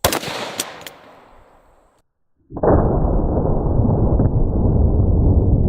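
Underbarrel shotgun firing a solid breaching round into a door lock: one sharp shot with a ringing tail and two smaller cracks just after it. After a short gap, a loud, steady low rushing noise starts about two and a half seconds in.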